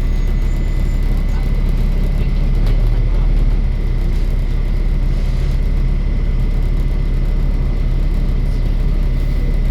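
Volvo B7 bus's six-cylinder diesel engine running with a steady low rumble, and a thin high-pitched whine held at one steady pitch over it.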